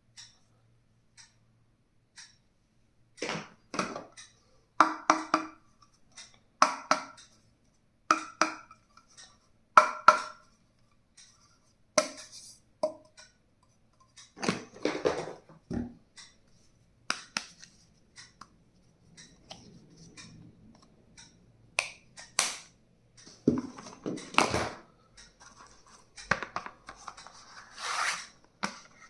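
Stationery items being handled and unpacked: a string of sharp knocks and clicks, some with a short ringing tone, then scraping and rustling of packaging in the last several seconds.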